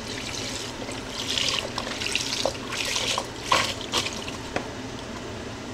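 Chicken broth pouring in a steady stream from a carton into a Dutch oven, splashing onto roux and chopped vegetables, with a few sharp clicks about halfway through.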